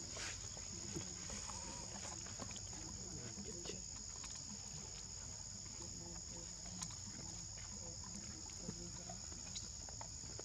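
A steady high-pitched drone of insects, with scattered faint clicks.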